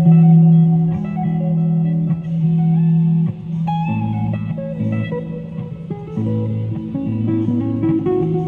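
Hollow-body electric guitar played through an amplifier: melody notes over chords and a changing bass line, with a short break a little past three seconds in.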